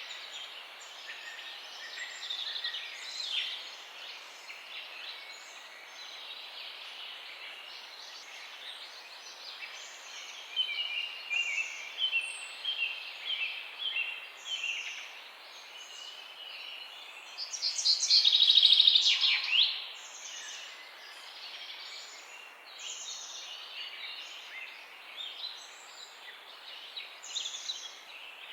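Many small birds chirping and singing together in a busy chorus of short high chirps and whistles. A loud, rapid trill stands out about eighteen seconds in.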